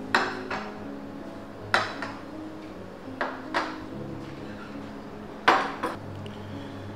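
Sharp clinks of white china plates being set down on a table, about seven in all, several coming in quick pairs, over soft background music with held notes.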